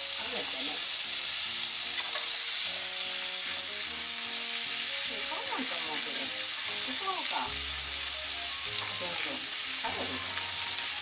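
Diced bacon sizzling steadily in hot oil in a stainless steel frying pan, stirred with cooking chopsticks.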